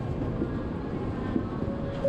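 Steady background noise of a Shinkansen train standing at the platform, heard from inside its vestibule, with a few faint ticks. A steady tone comes in near the end.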